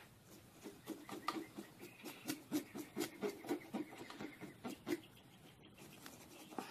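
Metal spoon scraping scales off a crappie, faint short strokes at about three a second that stop about five seconds in.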